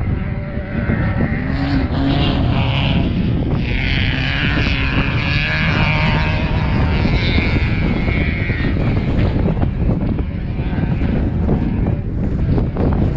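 Strong wind buffeting the microphone, with an off-road race vehicle's engine running through it; the engine sound is clearest between about two and nine seconds in.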